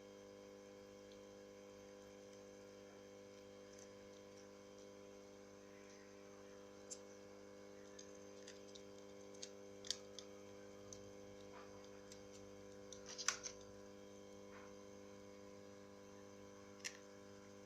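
Scattered light clicks and taps of small parts being handled, a quick cluster about thirteen seconds in, over a steady faint electrical hum.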